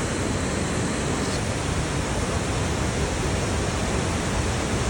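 Rushing water of a creek or waterfall, a steady, even rush with no breaks.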